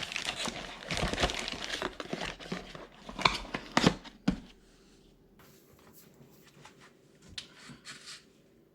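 Packaging crinkling and rustling as it is handled, with a few sharp knocks about three to four seconds in; after about four and a half seconds only a few faint taps.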